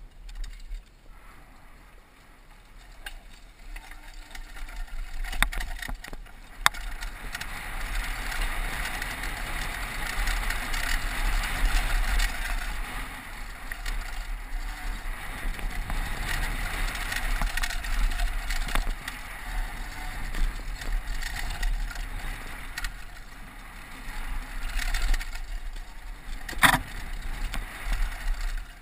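Downhill mountain bike descending a dry dirt trail at speed: a steady rush of wind on the helmet-mounted microphone and tyre noise, with the bike rattling and a few sharp knocks from bumps, the loudest near the end.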